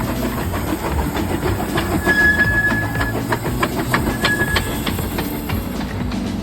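Romney, Hythe and Dymchurch Railway's miniature steam train running, with a rumble, hiss and rail clicking. About two seconds in a steady high tone sounds for about a second, then again more briefly about four seconds in.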